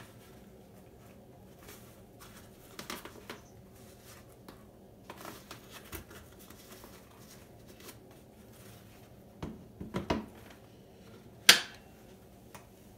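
Rustling and handling of a Brompton Borough front bag being lifted and lowered onto the bike, with a few knocks about nine to ten seconds in and one sharp, loud click about eleven and a half seconds in as the bag's frame snaps into the Brompton front carrier block.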